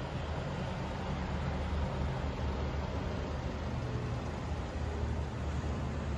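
Heavy-haul truck pulling a low-loader, its engine and tyres making a steady low rumble with road noise.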